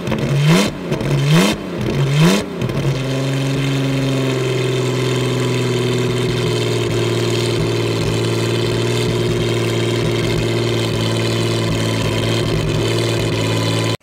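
Vintage aero-engined racing car's big aircraft engine blipped through several short, rising revs, then settling about two and a half seconds in to a steady, even idle.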